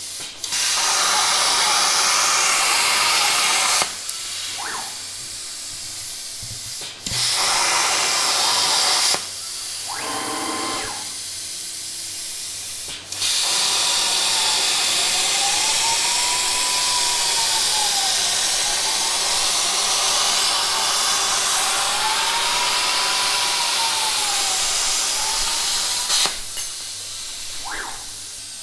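CNC plasma cutter (Unimig Razor Cut 45) cutting steel plate: a loud, steady arc hiss in three stretches, two of a few seconds and then one of about thirteen seconds that stops a couple of seconds before the end. Between the cuts there is a quieter air hiss, and the stepper motors driving the gantry give a faint whine that rises and falls in pitch as the torch moves.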